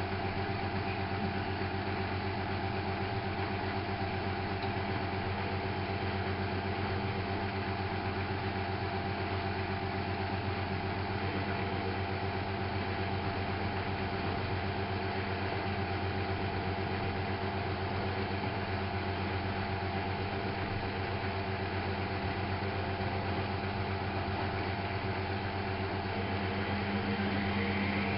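Miele Novotronic W830 washing machine running with a steady motor hum, growing a little louder and brighter near the end.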